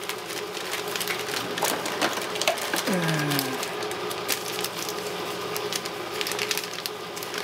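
Sandpaper packets and packaging being handled: continuous crinkling and rustling with many small clicks and taps.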